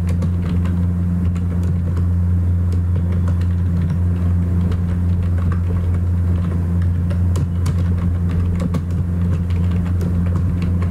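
Computer keyboard keys clicking irregularly as a short line of code is typed, over a steady low hum.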